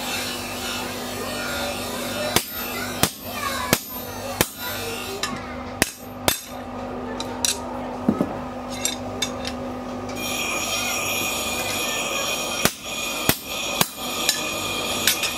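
A hammer strikes a steel punch driven into a red-hot knife tang on an anvil, punching a hole. The sharp metallic blows come about one to two a second in two runs with a pause between them, over a steady hum.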